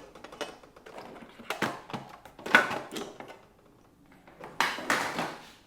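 Pliers gripping and tugging a stuck rubber grip off a mountain bike handlebar: scraping and rubbing with knocks, in three short bouts about a second and a half, two and a half and five seconds in.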